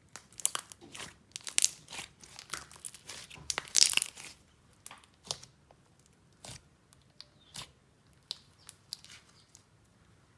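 Slime being squished and pulled by hand, crackling and crunching: a dense run of sharp crackles over the first four seconds or so, then scattered single pops.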